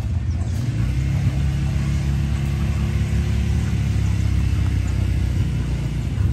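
An engine running steadily, heard as a low, even rumble.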